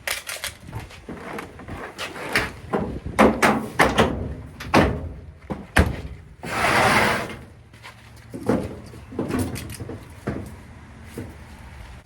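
A string of clunks and knocks as metal dryer panels and parts are handled and fitted back together. About six and a half seconds in there is a roughly one-second rushing hiss.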